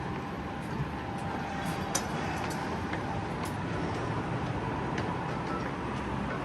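Steady city background noise, an even hum, with a few faint clicks about two and three and a half seconds in.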